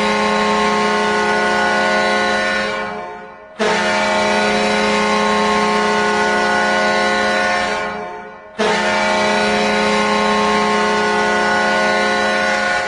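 Ice hockey goal horn, a deep air horn, sounded in three long blasts of about four seconds each. Each blast tails off before the next begins; the horn signals a goal scored.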